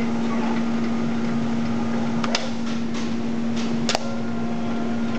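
Steady electrical hum of machinery, with a few sharp metallic clicks, the loudest about four seconds in.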